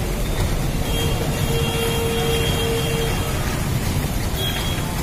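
Storm-force dust-storm wind buffeting the microphone, a continuous deep rumble and hiss, with road traffic passing. A steady tone is held for about two seconds, starting about a second in.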